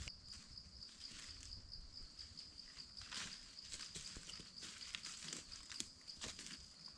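Irregular footsteps rustling through dry leaf litter and grass, with a steady high-pitched insect trill behind them throughout.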